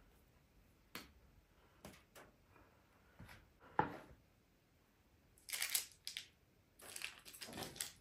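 Quiet handling sounds while shaping dough on baking trays: a few light clicks, a sharper clack of a clear plastic bowl being moved and set down about four seconds in, then rustling of the parchment paper as dough balls are handled on the trays.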